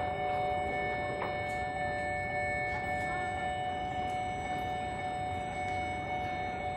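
Steady machinery hum aboard a passenger ship: several constant unchanging tones over a low even rumble.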